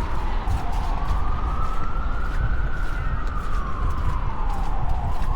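Emergency vehicle siren wailing, its pitch sliding slowly down and back up about once every five seconds, over a steady low rumble.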